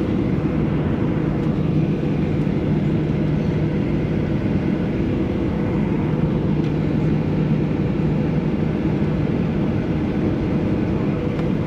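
Steady hum and rush of a Boeing 737's jet engines running at low power, heard inside the airliner cabin while it waits for takeoff clearance.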